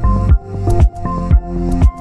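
Electronic music with a steady beat of deep bass thumps about twice a second under repeating synth notes.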